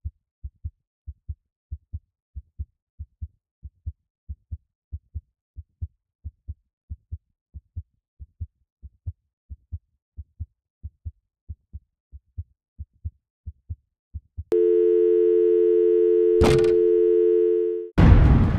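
Heartbeat sound effect: low, evenly paired thumps, about one and a half beats a second. About 14.5 s in, the heartbeat gives way to a steady, unbroken two-pitch electronic tone, like a telephone dial tone, with a brief crackle partway through. Near the end, a sudden loud burst of rushing noise begins.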